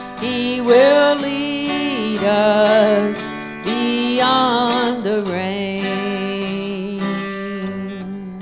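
A woman singing the closing line of a gospel song over acoustic guitar accompaniment. From about five seconds in she holds one long final note, which fades slowly as the guitar rings under it.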